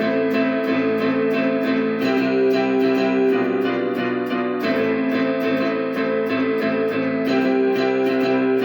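Instrumental music played on an electronic keyboard: a distorted, guitar-like voice over held chords, with a steady beat of about four ticks a second. The chords change about every two and a half seconds.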